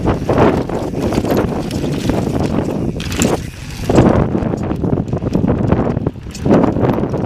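Mountain bike rolling fast over sandstone slickrock: wind buffeting the camera microphone over the rumble of knobby tyres on the rock, with frequent clicks and knocks from the bike rattling over the bumps.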